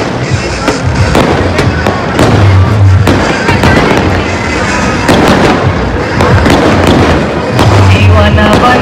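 Fireworks going off: a dense run of cracks, pops and bangs in quick succession, mixed with loud music.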